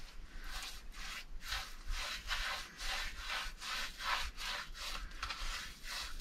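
A brush scrubbing white coating onto the rough plastered surface of a stove, in quick back-and-forth strokes, about four a second.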